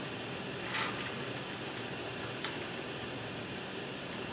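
Steady whooshing hum of a running air handling unit. Over it, a short rustle of wires being handled comes about a second in, and a single sharp click follows a little past the middle.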